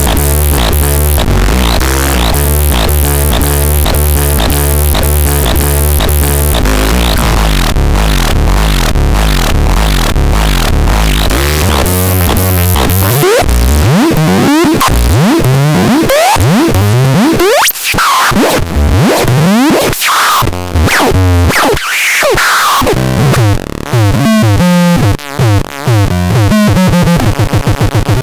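Synthesizer making loud, harsh electronic sounds: first a fast pulsing, stepping pattern over a low drone, then from about halfway through repeated pitch sweeps gliding up and down with noise and a few brief cut-outs.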